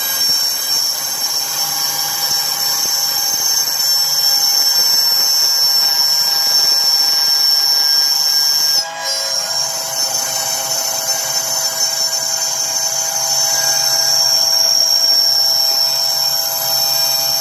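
Three-axis CNC machine running, its motors giving a steady high-pitched whine made of several tones. The sound drops out briefly about nine seconds in and then carries on with a slightly changed pitch.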